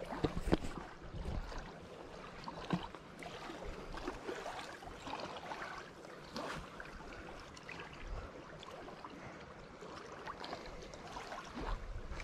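Faint outdoor noise with low gusts of wind on the microphone and scattered light clicks and rustles of hands handling a caught fish and a phone.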